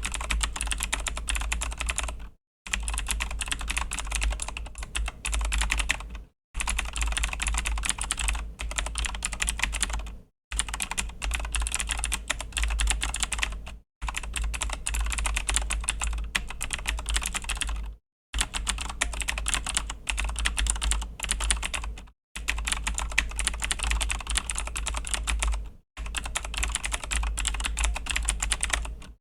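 Fast, continuous typing on a Razer BlackWidow V3 mechanical keyboard with clicky Razer Green switches: a dense run of key clicks. The typing comes in stretches of about four seconds, each broken off by a brief total silence.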